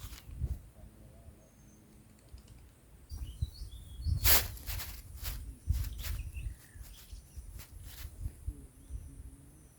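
Scattered sharp clicks and low knocks, the loudest about four seconds in, with a few short bird chirps between about three and five seconds in.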